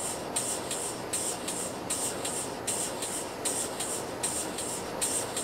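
Locomotive moving slowly, with a steady rhythmic beat of hissing pulses about two to three a second over a constant rumbling noise.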